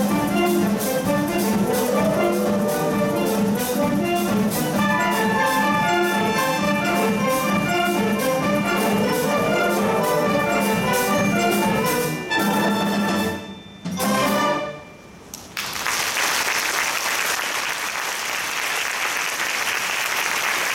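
School wind band with brass, woodwinds and percussion playing the closing bars of a piece, ending about two-thirds of the way through on a loud final chord and a short last stab. Audience applause follows and runs on.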